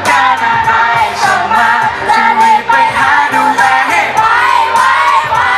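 A male singer singing a pop song live into a handheld microphone over a backing track with a steady beat.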